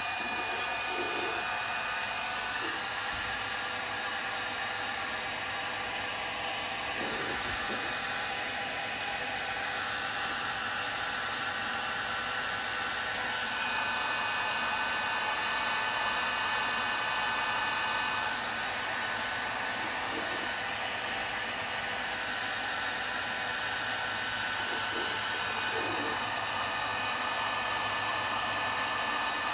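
Electric heat gun running steadily, its fan blowing hot air with a few steady whining tones, used to shrink heat-shrink tubing over spliced wires. It gets a little louder for a few seconds around the middle.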